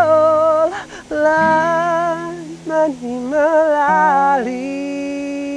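A singer holding long notes with vibrato in a slow melody, over sustained low accompanying notes.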